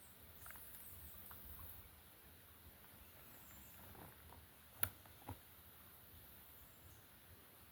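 Near silence: faint outdoor ambience with light high chirps, broken by one sharp click just before five seconds in and a softer click about half a second later.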